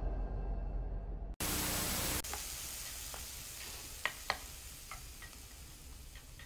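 A low music cue cuts off about a second in. A short loud hiss follows, then a steady quiet sizzle of food frying in a pan, with a few light clinks of a utensil.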